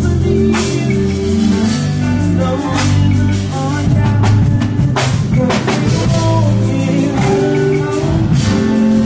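Live band music: keyboards playing held chords over a bass line, with a drum kit adding a few hits and ringing cymbal crashes.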